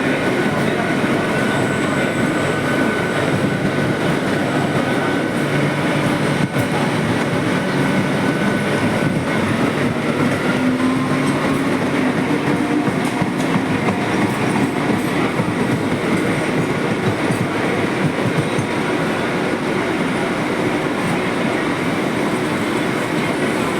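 Mumbai suburban electric local train running on the rails: a steady, loud rumble of wheels and carriages, with faint tones coming and going above it.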